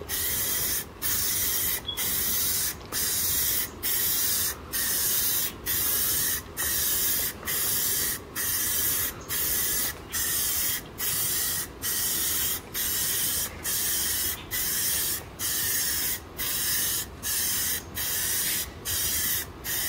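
Rust-Oleum gloss white aerosol spray paint hissing from the can in short, even passes, about one a second with brief gaps where the nozzle is let off between strokes.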